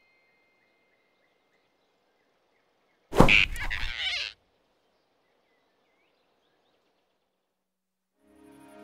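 A sudden loud yelp from a cartoon flying squirrel as it is grabbed by the throat, lasting just over a second and cutting off abruptly. It sits over faint forest ambience, and music starts to fade in near the end.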